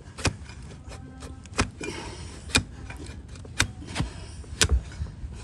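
Broad flat hoof knife pared down through a donkey's hoof wall onto a wooden block: a sharp cutting knock about once a second, five in all, as each slice of horn comes away.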